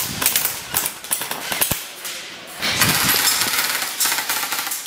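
Airsoft rifles firing on full auto: two long strings of rapid, sharp clicking shots with a short lull about two seconds in.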